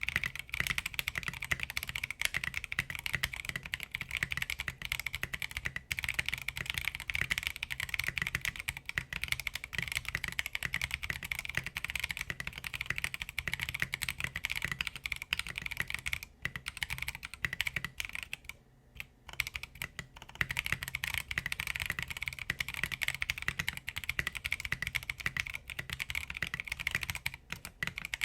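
Steady, fast typing on a 60% mechanical keyboard with Blue Velvet tactile switches, KAT blank keycaps, an aluminium plate and a silicone-dampened plastic case; the dampener makes the keystrokes muted and fairly deep. The clacking runs densely, with one brief pause about two-thirds through.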